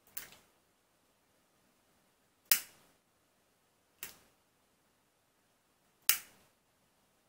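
Handheld lighter's ignition clicked four times, a second or two apart, as it is relit; each sharp click trails off briefly.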